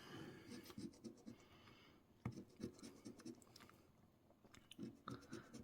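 A coin scratching the coating off an instant scratch-off lottery ticket, faint short scraping strokes coming in irregular bursts.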